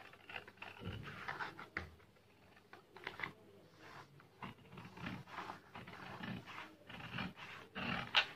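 Scissors cutting through pattern paper in a run of short, uneven snips, the loudest near the end.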